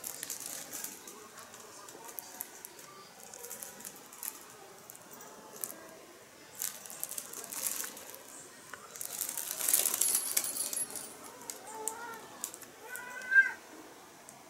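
A cat moving inside a collapsible fabric play tunnel: the fabric rustles and crinkles with scattered light rattling clicks, busiest about two-thirds of the way in. Near the end a cat meows a few short times, the last meow the loudest sound.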